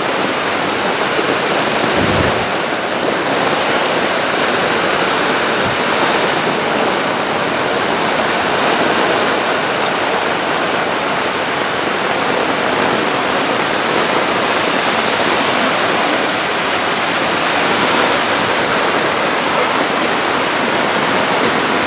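Typhoon floodwater rushing down a flooded village street in a steady roar of water, with splashing as people wade through it. A dull knock sounds about two seconds in.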